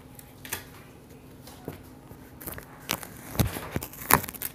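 Irregular knocks and thumps, about half a dozen, the loudest near the end, over a steady low hum.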